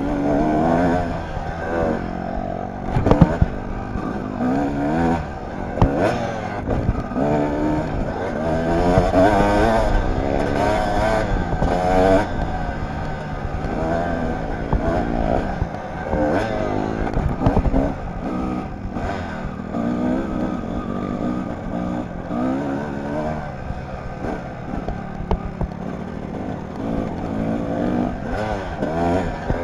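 Kawasaki dirt bike's engine revving up and down as it is ridden, its pitch rising and falling over and over with the throttle and gear changes, with occasional sharp knocks and clatter.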